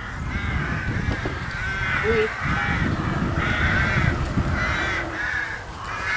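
Crows cawing repeatedly in several short bouts, over a steady low rumble.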